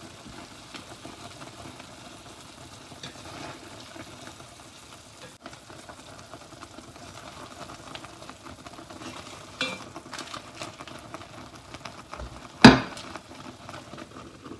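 Aburaage simmering in a sweet soy-based liquid in a covered pot: a steady, low bubbling sizzle. A few light clicks come near the middle, and a sharp knock about two seconds before the end is the loudest sound.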